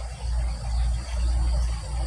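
A low, uneven rumble that swells and dips, with faint insects chirring steadily above it; no junglefowl calls.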